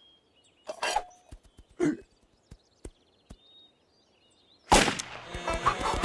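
Toy cork pop-gun fired as a starting pistol: one sudden loud pop near the end, after a mostly quiet stretch with a couple of short rustling sounds.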